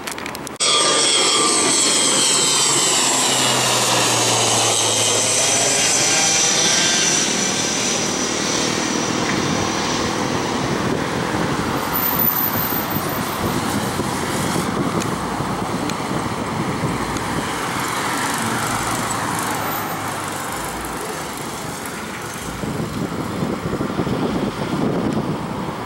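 ATR 600-series twin-turboprop airliner climbing out after takeoff: loud engine and propeller noise that comes in abruptly, with whining tones falling in pitch as it passes, then settling into a broad rumble as it climbs away.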